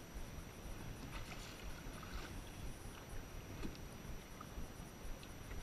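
Choppy water lapping and splashing against the hull of a small boat, over a steady low rumble.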